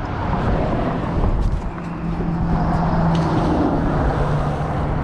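Road traffic noise from vehicles crossing the bridge, with an engine hum holding one steady low note from about two seconds in.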